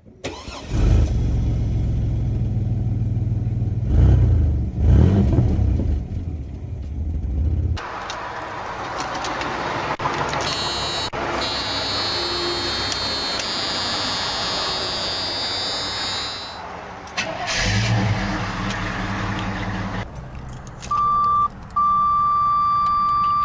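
Chevy Blazer engines starting and running, revved twice a few seconds in. Near the end a steady high electronic warning tone, the door chime, begins and holds.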